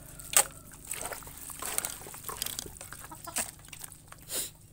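Chickens clucking low while pecking at wet food scraps in a plastic basin, with sharp beak taps against the bowl every second or so, the loudest about half a second in.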